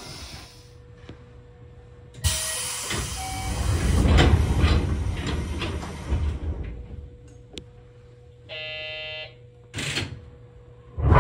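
A 205 series electric train's sliding doors closing at departure, with a loud rush of air hiss and a deep rumble lasting a few seconds. Later a short buzzer tone sounds for about a second, and a sharp knock comes near the end.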